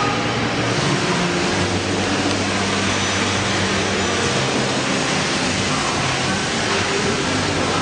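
Fully automatic sleeve sealer and shrink tunnel running: a steady mechanical whir and hiss of motors and hot-air circulation fans with a low hum under it.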